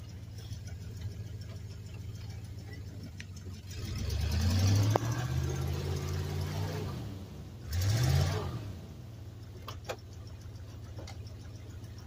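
1990 Dodge W250 pickup's engine idling, then revved hard twice, about four and eight seconds in, as its unchained tractor-tread tires spin in deep snow without traction, before settling back to idle.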